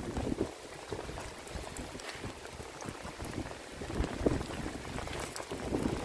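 Wind buffeting the microphone in uneven gusts, over a fine patter of falling sleet.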